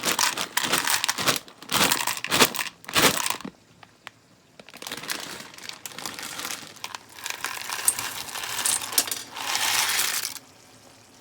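Dry whole wheat fusilli rattling out of a crinkly plastic packet onto kitchen scales, in several bursts with a short pause about four seconds in. A last loud burst cuts off suddenly near the end.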